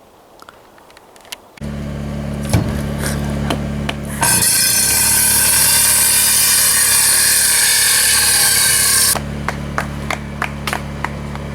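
A small petrol engine on a wood-cutting machine starts running steadily, then goes into about five seconds of loud cutting through wood before dropping back to the steady running sound.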